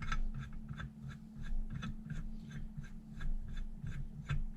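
Rapid light clicking, about three to four clicks a second, over a steady low hum, from hand-tool work on the clutch-pulling stud.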